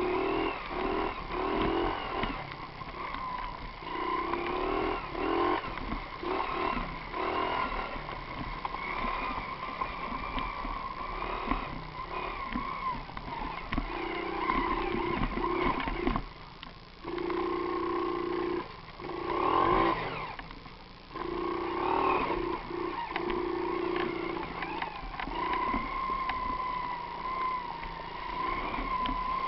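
Mini motorcycle's small engine running and revving, its pitch rising and falling as the throttle changes, with two brief drops a little past the middle.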